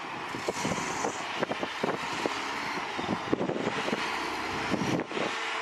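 Heavy machinery working: a steady mechanical noise with frequent short knocks and rattles throughout.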